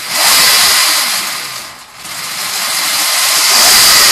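Electric pitbike's Motenergy ME0913 brushless motor and chain drive revved up on the stand, rear wheel spinning free: a loud high whir that rises, eases off about two seconds in, then rises again.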